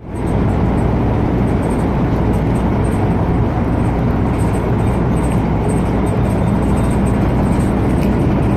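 Steady engine and road noise of a moving motor vehicle, a constant low hum under a broad rushing noise.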